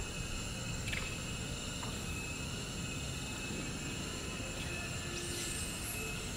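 Steady outdoor background: a constant high insect drone over a low rumble, with a couple of faint ticks about a second in.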